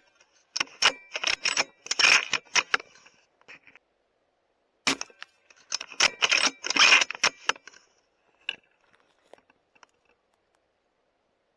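Subsonic rounds fired from a custom .308 Win bolt-action rifle: a sharp shot about five seconds in, with two quick runs of loud metallic clicks and clacks as the bolt is worked to chamber the next round, and a few lighter clicks near the end.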